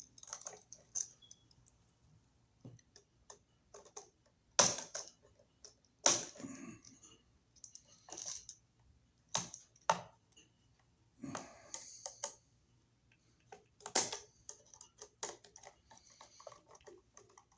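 Irregular clicks, taps and scrapes of hand tools and copper wire on a wall outlet as the black wire is bent into a loop and fitted under its screw terminal. Several sharper knocks stand out among them.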